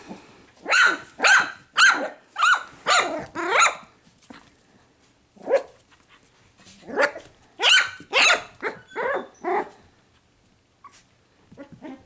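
Young puppies yapping in short, high-pitched barks while they play: a run of about six yaps, a lone yap, then another run of about six.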